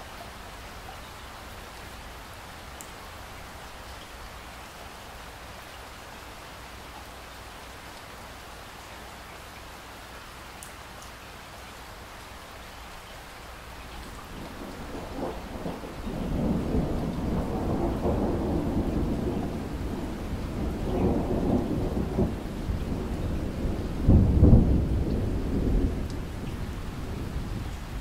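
Steady rain falling on a window, then about halfway through a long roll of thunder rumbles in, swelling in waves, loudest about three-quarters of the way through, and easing off near the end.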